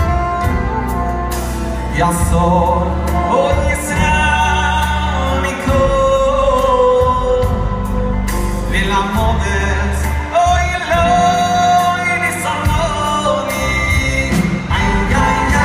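Male singer performing a Jewish song live with a band, his sung melody carried over drums with regular cymbal strokes and a steady bass line.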